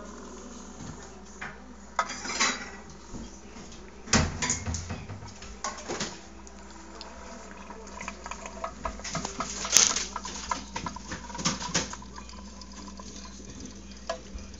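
Tin pop-pop steam toy boat in a sink, making irregular light clicks and metallic taps over a faint steady hum. One click about ten seconds in is the loudest. The boat is only just starting to move.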